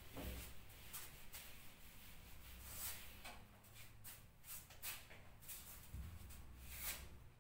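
Faint, short swishes of a bare hand wiping marker writing off a whiteboard, repeated irregularly, over a low room hum.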